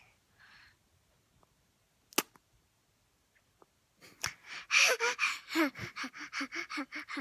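A toddler's voice in a quick run of short repeated sounds, about five a second, starting about four seconds in. A single sharp click comes about two seconds in.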